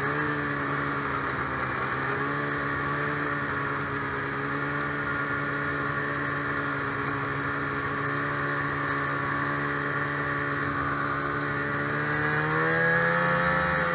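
Polaris two-stroke snowmobile engine heard from on board, running at a steady cruising speed. The revs rise about twelve seconds in and ease off again at the end.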